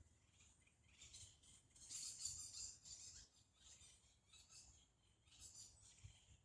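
Faint forest ambience of high-pitched chirping from small wild creatures, coming in pulses and loudest about two seconds in.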